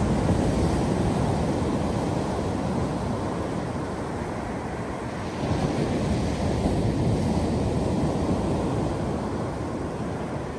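Ocean surf: waves breaking and washing up a sandy beach in a steady rush, swelling a little louder about halfway through.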